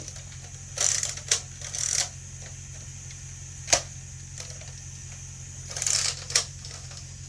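Plastic Nerf blaster and dart handling: a few sharp clicks and short rustling clatters, spaced a second or more apart.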